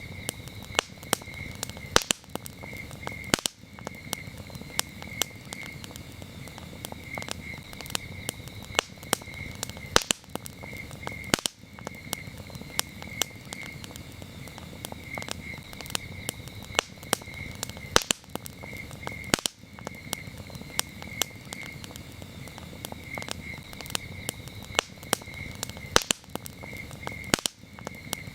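Wood campfire crackling with many small snaps and a few sharp, louder pops, over crickets chirping in steady pulsing trills.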